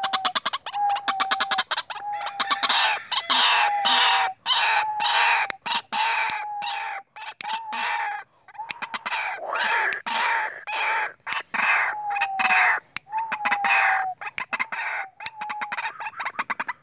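White-breasted waterhen calling: a long run of repeated harsh, croaking notes at a steady pace, a note about every two-thirds of a second.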